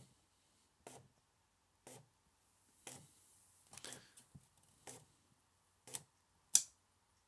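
TRS-80 four-pen plotter printer feeding its paper on in steps, a short mechanical click about once a second with the last one the loudest: the printer keeps scrolling paper after the print job has ended.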